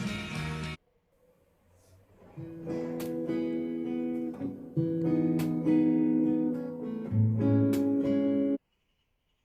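Music: a song breaks off under a second in, and after a short gap an acoustic guitar plays a picked passage for about six seconds, cutting off suddenly near the end.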